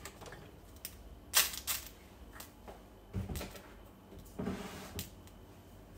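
Irregular clicks and knocks of kitchen things being handled and set down, the sharpest about a second and a half in, with two duller thuds later on.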